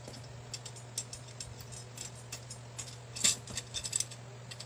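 Light metallic clicks and ticks of loose steel spokes knocking against a motorcycle wheel's hub and rim as the partly laced wheel is handled, with a cluster of louder clicks a little after three seconds in as the wheel is turned over.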